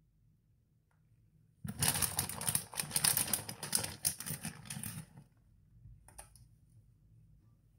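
Plastic bag of shredded cheese crinkling and rustling in a dense crackle as it is shaken out over a pizza. It starts about a second and a half in and stops about five seconds in.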